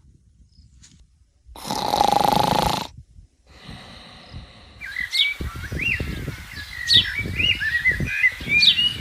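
A loud hissing whoosh lasting about a second, two seconds in. From about five seconds in, birds chirp in short sliding calls over low irregular thumps and rustling.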